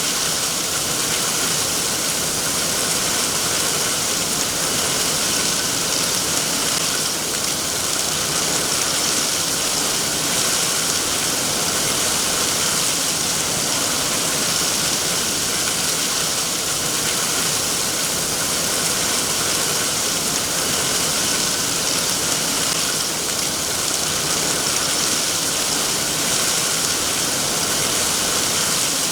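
Steady rain falling, an even hiss of drops that holds constant with no thunder or separate drips standing out.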